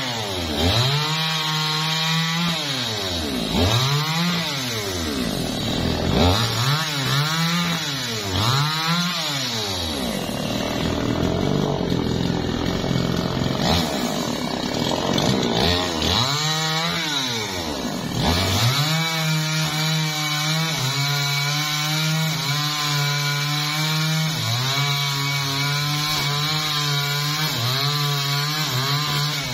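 Gasoline chainsaw revving up and down in repeated throttle blips for the first ten seconds or so, with one more blip a few seconds later. From about twenty seconds in, the engine holds steady high revs under load as the chain cuts through a teak log, with slight dips in pitch.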